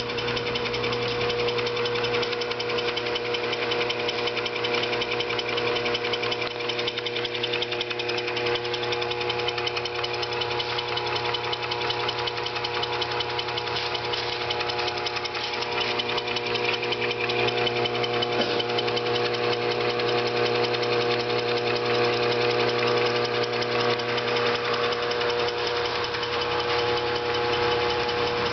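New Style 25 lb Little Giant power hammer running steadily, smooth and quiet, its moving parts freshly replaced and in excellent working condition.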